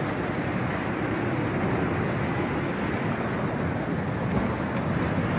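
Rough sea surf breaking and washing up onto a seafront terrace and stairway, a steady rushing noise, with no sand left to take the waves.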